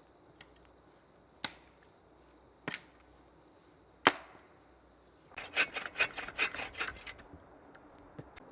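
Firewood being worked: three sharp wooden knocks spaced a second or so apart, then a quick flurry of cracking and snapping for about two seconds.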